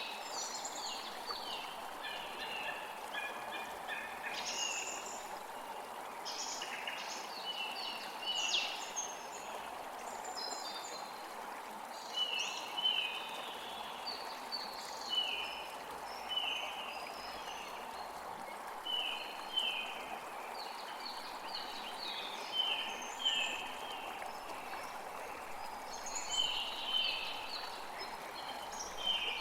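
A creek flowing steadily, with songbirds calling and singing over it in short repeated phrases of quick, high, falling notes.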